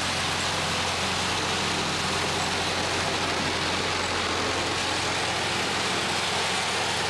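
Tractor engine running steadily at an even pitch, with no revving.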